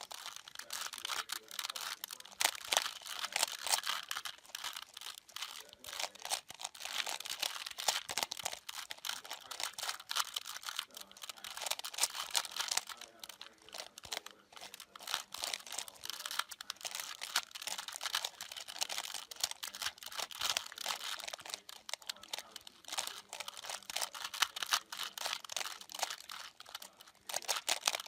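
Plastic 3x3 puzzle cube being turned fast by hand: a continuous dense clatter of small clicks and rattles as the layers snap around during a solve.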